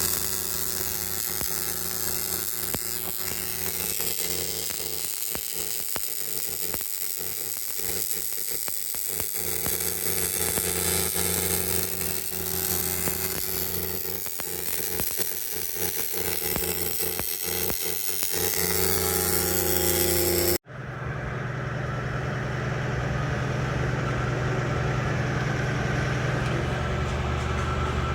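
Portable line boring machine running, its boring bar cutting the damaged bore: a steady machine whine over a high hiss. About two-thirds of the way through the sound cuts off suddenly and a steady low hum, like an idling engine, takes over.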